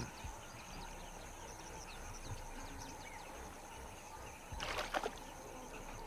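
Faint outdoor ambience with small birds chirping now and then, and a short burst of noise about five seconds in.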